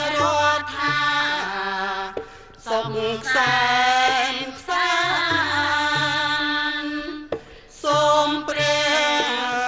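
Traditional Cambodian dance music: a singer's voice in long, wavering phrases over instrumental accompaniment with steady low notes, breaking off briefly about two seconds in and again about seven seconds in.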